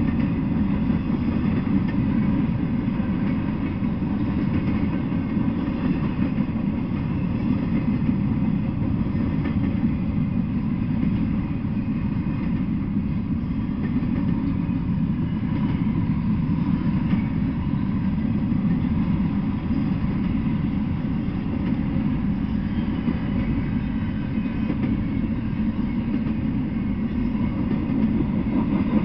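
Freight train cars rolling past at a steady pace: a continuous low rumble of wheels on the rails that holds even throughout.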